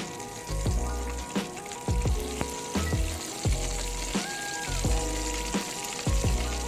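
Food sizzling in oil in a miniature frying pan: a steady hiss over background music with a regular beat.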